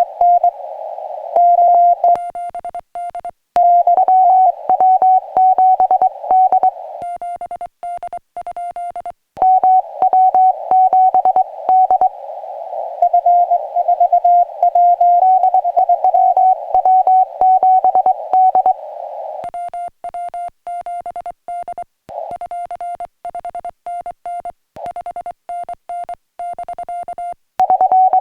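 Morse code on a portable ham radio: a single tone of about 700 Hz keyed on and off in dots and dashes. Louder stretches that sit in a hiss of filtered band noise alternate with quieter, clean stretches. This is the pattern of a CW contact, with the other station received through the radio and the operator's own paddle-keyed sidetone in between.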